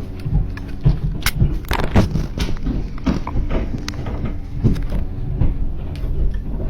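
Banging in an attic: an irregular run of sharp knocks and heavy thuds over a low steady hum.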